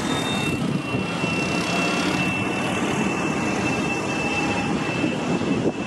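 Steady engine noise with a thin, steady high-pitched whine over it.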